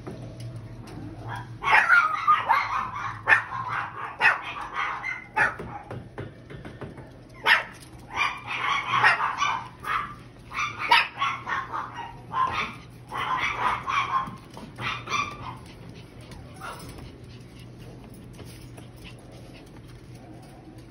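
Young puppies yipping and barking in short, high-pitched bursts while they wrestle in play. The yips come in quick clusters and stop near the end.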